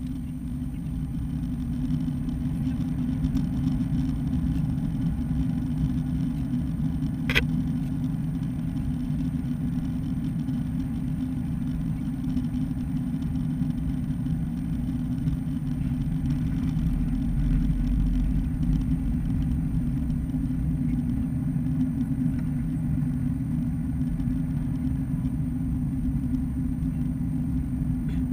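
Airbus A330-200 at takeoff heard from inside the cabin: the jet engines' low rumble builds over the first few seconds to a loud, steady level through the takeoff roll and liftoff. A single sharp click comes about seven seconds in.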